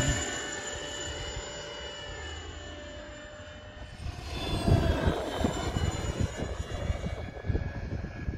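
Whine of the ceflix500+ electric ducted fan in a 1:3.5 scale Arcus glider model passing and moving away, its pitch falling and its level fading. About four seconds in, a gusty low rumble joins it while the fan's whine carries on faintly.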